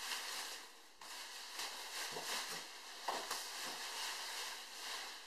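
Black plastic garbage bags crinkling and rustling irregularly as they are pulled off a plastic fermenting bucket, with a few soft knocks.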